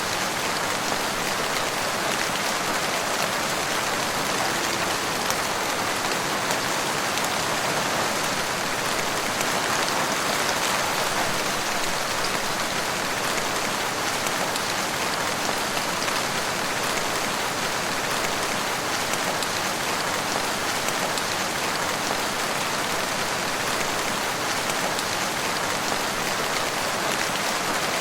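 Steady rain falling in woodland, an even patter of drops on leaves and ground with no pauses.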